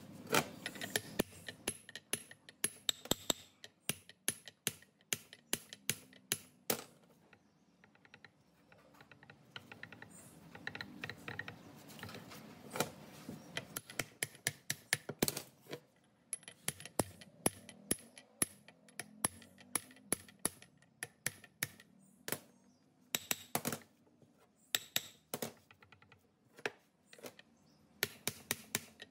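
Irregular light metallic clicks and taps, some in quick runs, a few with a brief high ring: hand tools working on metal parts.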